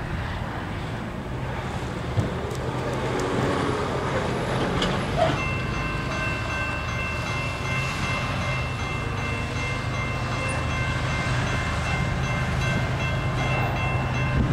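Distant Norfolk Southern freight train approaching, a low steady rumble that slowly grows louder. About five seconds in, the lead ES44AC locomotive's air horn starts sounding a chord and keeps going.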